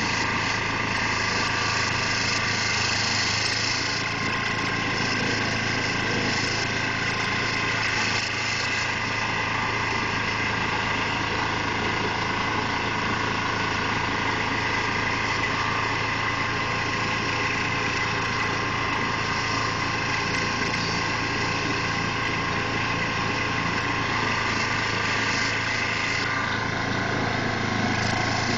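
Carlton SP4012 stump grinder's gasoline engine running steadily at working speed while its cutter wheel grinds into a stump.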